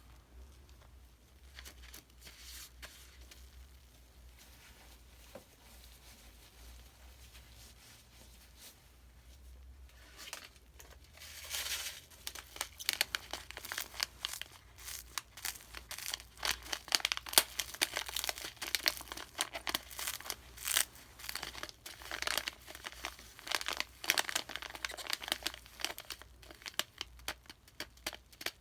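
Crackling and crinkling, faint and sparse at first, then dense, irregular and louder from about ten seconds in.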